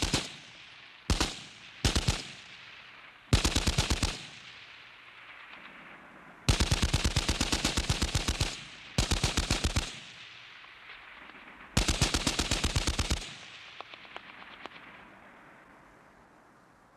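Automatic gunfire: a machine gun fires seven bursts, three short ones in the first two seconds and then four longer ones of about a second or two each, at roughly ten rounds a second. Each burst leaves a long echo dying away behind it, and the last echo fades out near the end.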